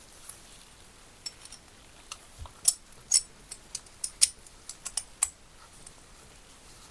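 Sharp, light clicks and taps of small hard parts being handled, about fifteen of them at an irregular pace in the middle few seconds.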